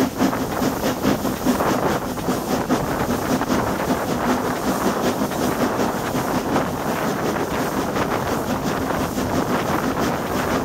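Wind buffeting the microphone at an open carriage window over the running of a train hauled by the Great Northern Railway V class 4-4-0 compound steam locomotive No. 85 Merlin, with a fast, even beat.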